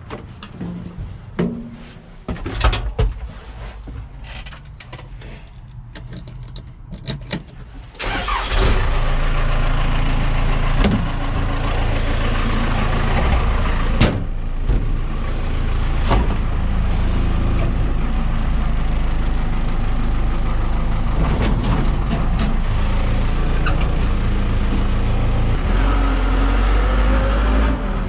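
Scattered clicks and knocks, then about eight seconds in a backhoe's diesel engine starts and runs steadily and loudly, with a few sharp knocks over it.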